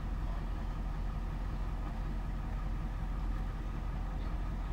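Fire engine idling with a steady low rumble.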